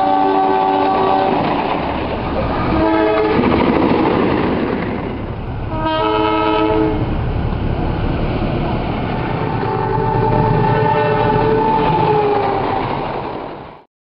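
Indonesian diesel locomotive horns sounding the Semboyan 35 horn signal over the rumble of a train on the rails: a held chord at the start, a short blast about 3 s in, a blast of about a second near 6 s, and a longer blast around 10 to 13 s whose pitch sags slightly at its end. The sound cuts off suddenly just before the end.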